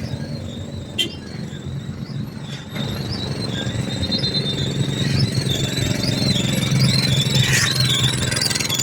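Road-works machinery engine running steadily under a high, wavering squeal, with a sharp click about a second in; it grows louder a little under three seconds in.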